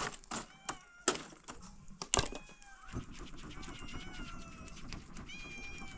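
A few sharp knocks, then several high, thin animal calls overlapping, each held and wavering slightly.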